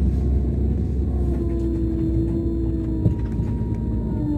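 Scania K410 coach's DC13 inline-six diesel running, heard from the lower deck as a steady low rumble with a whine that falls slowly in pitch as the coach slows. A brief knock about three seconds in.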